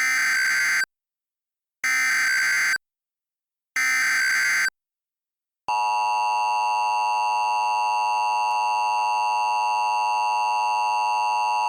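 Emergency Alert System SAME header: three bursts of digital data tones, each just under a second long and about a second apart. After a short gap, a steady EAS attention tone begins about six seconds in, marking the start of an emergency alert.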